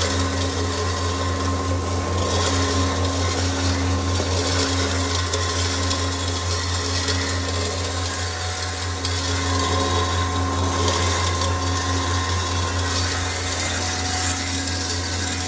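Electric maize pulverizer with a built-in suction blower running under load, grinding corn kernels drawn up its suction pipe. It makes a steady low motor hum under an even rushing hiss of air and grain.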